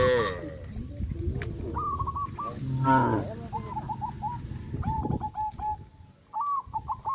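Cattle mooing: one low call right at the start and another about three seconds in. Small birds chirp over them through the rest.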